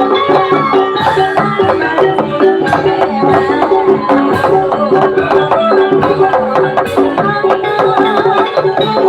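Javanese gamelan accompaniment for a kuda kepang horse dance: a hand drum beats quick strokes over bronze metallophones ringing steady, interlocking notes.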